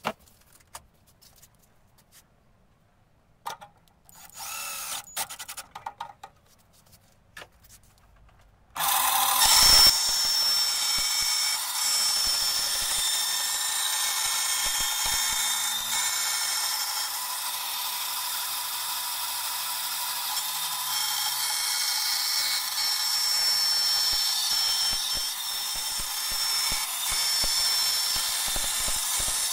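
A small band saw switches on about nine seconds in and runs steadily with a high whine as its blade cuts a thin clear plastic sheet. Before that there are only a few handling clicks and rustles.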